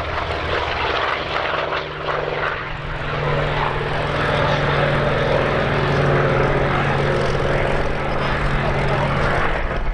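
Hawker Sea Fury's piston radial engine droning steadily as the fighter flies past overhead, growing louder from about three seconds in.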